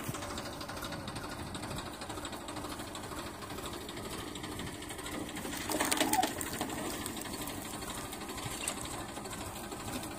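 Tractor diesel engine idling with a steady, fast rhythmic knock. A brief louder noise cuts in about six seconds in.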